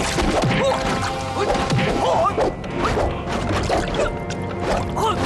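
Background music over fight sound effects: sharp whacks of blows, with short shouts from the fighters.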